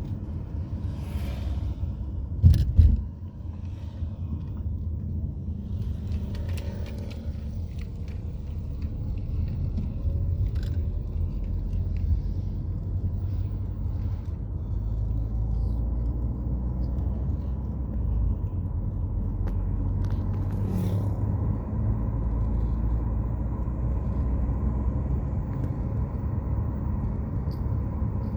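Sea waves surging on a beach, a steady low rumble. A loud knock about two and a half seconds in.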